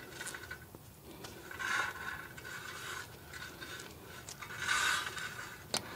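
Rear brake rotor of a 2008 Honda Odyssey, with the caliper off, scraping as it turns: repeated rubbing scrapes with a ringing note, and a sharp click near the end. Something is touching the rotor, which the mechanic suspects is the emergency brake shoe inside it.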